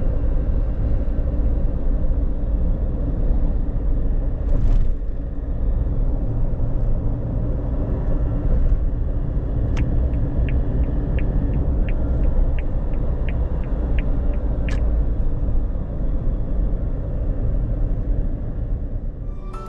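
Cabin drone of a Suzuki Jimny cruising at expressway speed: the steady low rumble of its 658 cc intercooled turbo three-cylinder and its tyres on the road. A quick, even run of light clicks sounds for about five seconds midway.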